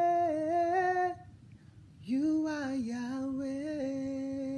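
A woman singing a worship chorus unaccompanied: a long held note that breaks off about a second in, then after a short pause a lower phrase that she sustains.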